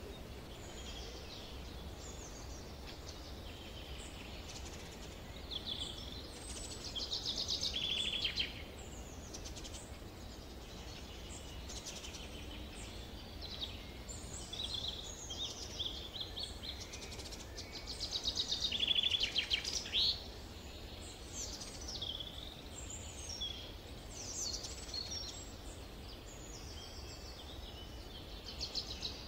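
Several forest birds singing and calling over one another in summer, with a steady low rumble underneath. Rapid trills stand out about seven seconds in and again near nineteen seconds.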